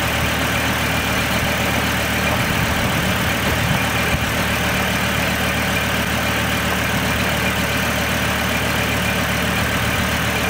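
Pickup truck engine idling steadily with the hood open.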